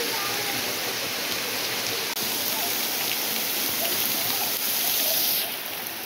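Waterfall water falling as a thin curtain of streams and drops from a rock overhang and splashing on the rocks: a steady rush like heavy rain, dropping a little in level near the end.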